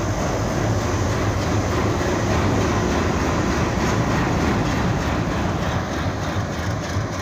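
Green Indian Railways diesel locomotive with a hood body and end radiator grille, its engine running as it moves past close by: a steady, deep engine drone.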